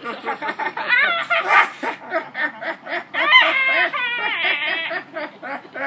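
Two young people laughing hard and screaming while brushing their teeth, in quick pulses of laughter with high rising shrieks, loudest a little past the middle.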